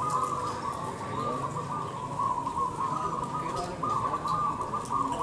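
Zebra doves (perkutut) cooing, many coos overlapping into a continuous chorus.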